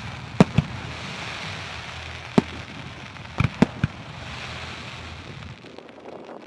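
Fireworks display: a series of sharp bangs from exploding fireworks, two about half a second in, one near two and a half seconds, and a quick run of four around three and a half seconds, over a steady background noise.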